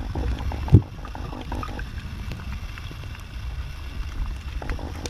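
Muffled low rumble of water moving against a submerged camera, with a single low thump just under a second in and faint scattered clicks.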